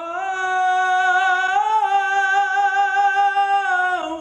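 A man singing one long held note with vibrato. It steps up slightly about a second and a half in and slides down near the end.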